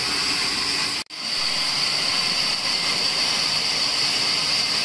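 Large vertical band saw running with a steady, loud hissing whir. The sound cuts out for an instant about a second in, then carries on unchanged.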